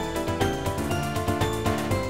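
A Samsung SGH-T400 polyphonic MIDI ringtone played through the Beatnik Player's Mobile 0100 synth preset: a busy multi-voice synthesized tune with a steady, quick percussion beat.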